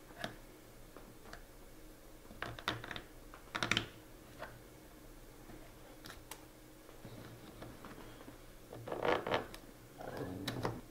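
Black plastic zip ties being threaded and pulled around a corrugated plastic dishwasher drain hose: scattered light clicks and rustles in a few bunches, the louder ones about a third of the way in and near the end.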